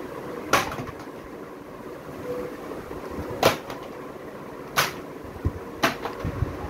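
Children's books being handled and set down on a stack in a cardboard box: four sharp knocks and slaps of book covers, spread over several seconds, over a steady background hum.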